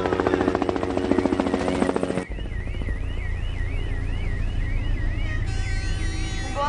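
A helicopter's rotor chopping fast and steadily, cut off about two seconds in by a low rumble and an emergency siren wailing rapidly up and down, about three sweeps a second.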